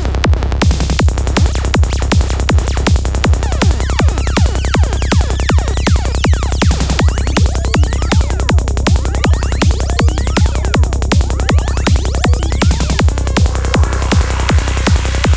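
Dark psytrance track at 160 beats per minute: a steady kick drum and rolling bassline under rising synth sweeps, with the hi-hats and high end filling in just after the start.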